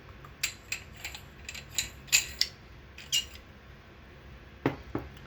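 Handling of a lightsaber hilt: a quick run of about a dozen sharp clicks and taps, then two more near the end.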